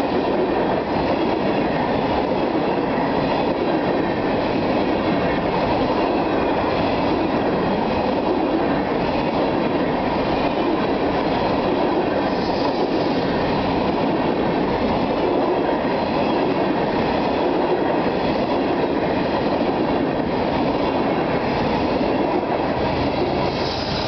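Freight train hopper cars rolling past at speed: a steady, unbroken rumble of steel wheels on the rails.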